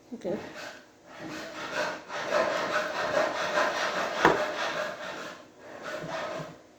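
Plastic model-kit parts rubbing and scraping against each other as they are handled and pressed together, with a sharp click about four seconds in.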